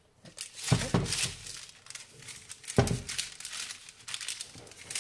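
Crinkling and rustling as cut cinnamon rolls are set into a lined baking tray, with two louder thuds: one under a second in, one near three seconds.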